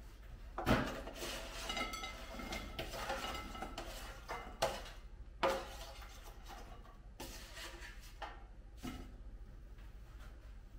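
A spatula scraping and knocking on a baking tray as chips and a pie are slid off onto a plate, with a sharp clank about a second in and a few more knocks later.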